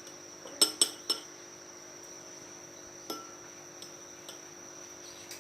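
A metal spoon clinking against a glass: three sharp clinks in quick succession about half a second in, then a few lighter taps, as honey is spooned in for a lime-and-honey cough remedy.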